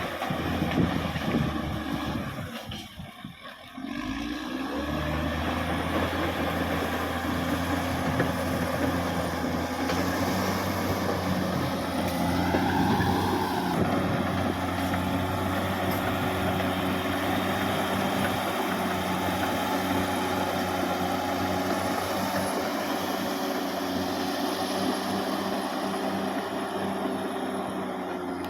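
Caterpillar D6R XL bulldozer's diesel engine running steadily, dipping briefly about three seconds in, with a short whine that rises and falls a little before the middle.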